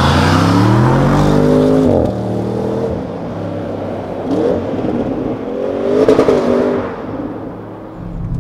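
Stock Audi RS7's twin-turbo V8 exhaust revving: the engine note climbs steadily for about two seconds and drops off sharply, then rises and falls again in a shorter surge near six seconds in.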